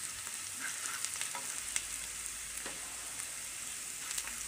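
Chopped onions and spice powders sizzling in hot oil in a frying pan, stirred with a wooden spatula whose scrapes and light taps on the pan come through the sizzle every so often.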